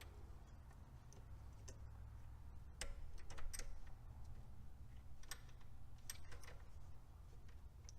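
Scattered light clicks and taps of small ignition parts being handled and fitted by hand during a Pertronix ignitor install, over a faint low hum.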